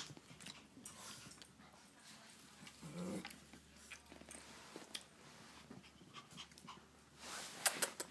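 Small dogs scuffling at play, with a short low growl about three seconds in and scattered light knocks and clicks, busiest near the end.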